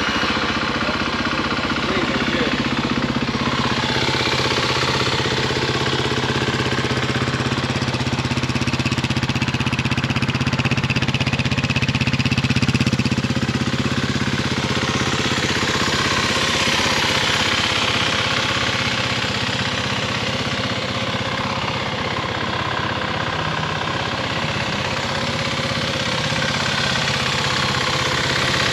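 Kawasaki KLX300's single-cylinder engine idling steadily.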